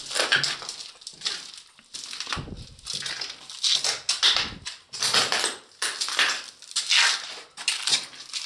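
Footsteps crunching and scraping over debris, roughly one a second, with a couple of dull thumps in between.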